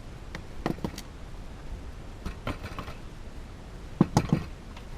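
Scattered knocks and clinks of metal pots, trays and tools being handled, in small clusters about a second in, around two and a half seconds and loudest around four seconds.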